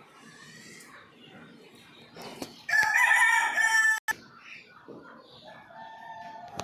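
A rooster crowing: one loud, drawn-out crow of just over a second, starting a little before the middle and cutting off sharply. A fainter pitched call follows near the end.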